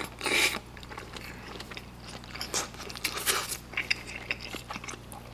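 Close-miked eating sounds of thick, chewy Chinese glass noodles with braised chicken: a brief slurp as a mouthful is drawn in, then wet chewing with scattered small smacks and clicks.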